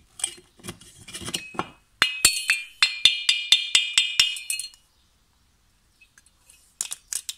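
Finned aluminium moped cylinder head knocked repeatedly against a workbench, about ten quick sharp knocks in a couple of seconds, each with a metallic ring, shaking carbon and dirt out of the seized decompression valve's passage. Before the knocks, a metal tool clicks and scrapes lightly in the valve port.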